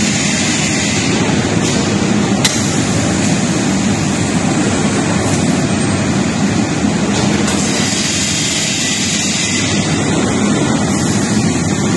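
Steady machinery noise from an automatic glass cutting line with suction-cup side loaders running, with one sharp click about two and a half seconds in.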